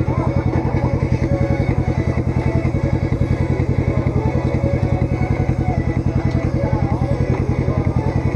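An ATV engine idling close by, steady with a rapid, even pulse.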